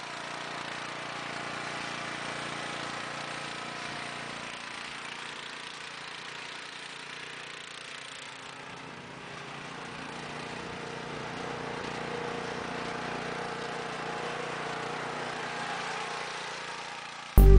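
Dixie Chopper Zee One zero-turn mower's engine running steadily as the mower drives off and comes back, fading toward the middle and growing louder again as it nears. Music cuts in loudly right at the end.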